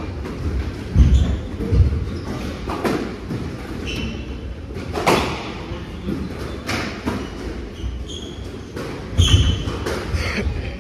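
Squash rally on a glass-walled court: sharp knocks of the ball off rackets and walls every second or two, heavy footfalls, and short sneaker squeaks on the wooden floor, echoing in the hall.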